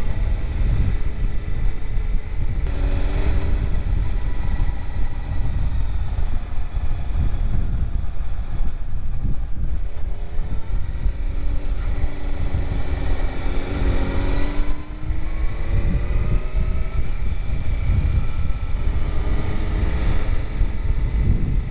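Suzuki GSX-R 750 K4's inline-four engine under way, climbing in pitch several times as it accelerates, over a steady heavy wind rumble on the microphone.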